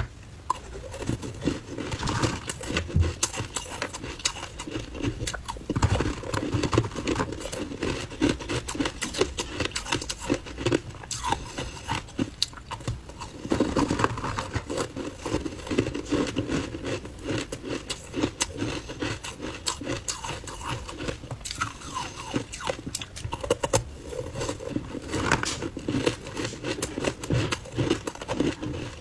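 Close-up ice eating: a metal spoon scraping and scooping frozen ice balls coated in matcha powder in a clear box, with a steady run of crackling from the frosty ice and some crunching and mouth sounds as the ice and powder are eaten.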